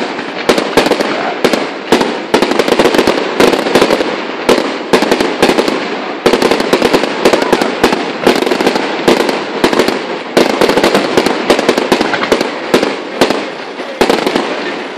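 Fireworks display going off in quick succession: sharp bangs of bursting shells, several a second without a break, over a continuous rumble and crackle.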